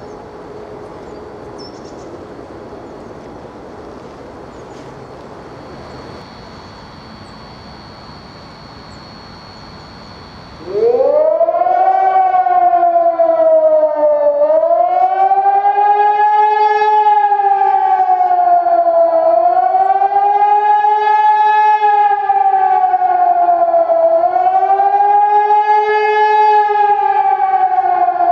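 Hörmann ECN 2400 electronic high-power siren starting up about eleven seconds in with a steep rising glide. It then sounds a slow up-and-down wail, swelling and falling about every four to five seconds: the German warning signal for acute danger to the population. Before it starts there is only quiet outdoor background.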